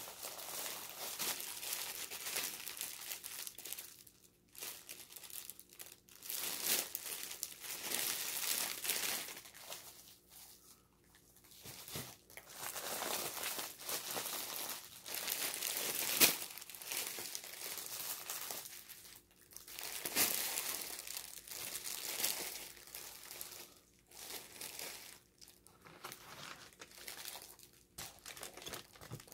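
Clear plastic packaging crinkling and rustling as it is handled and pulled apart, in irregular bursts with short pauses between.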